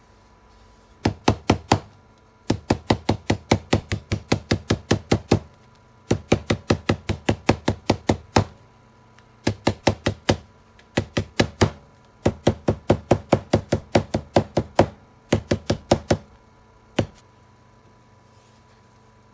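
Rapid hard tapping, about five sharp taps a second, in bursts separated by short pauses, ending with a single tap.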